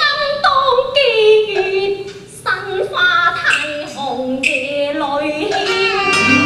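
Cantonese opera singing: a high voice sliding between held notes with wide vibrato, phrase after phrase.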